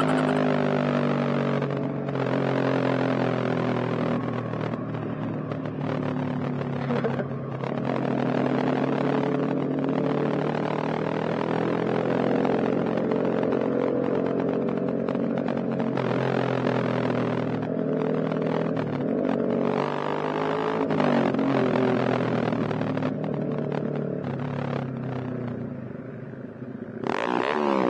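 Yamaha XSR155's single-cylinder engine through an aftermarket SC Project exhaust while riding, the engine note rising and falling with throttle and gear changes.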